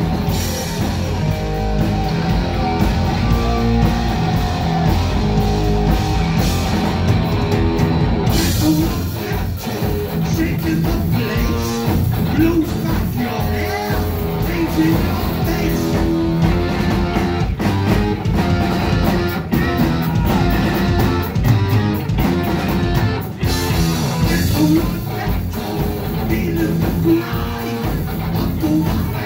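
Heavy metal band playing live: distorted electric guitar and drums with a male lead vocal singing over them.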